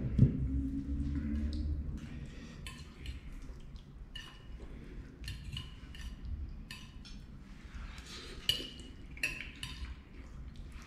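A metal fork repeatedly clinking and scraping against a ceramic plate while eating, in short irregular taps. Two sharp knocks at the very start, as a glass bowl is set down on the table.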